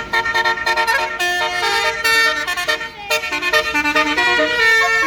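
A tour bus's basuri telolet horn, a multi-note melodic air horn, playing a quick tune of stepping notes, with a short break about three seconds in.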